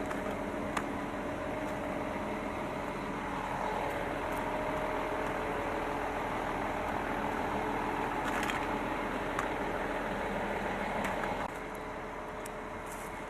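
An engine running steadily at idle, with a few light clicks; the sound drops abruptly to a lower level about eleven and a half seconds in.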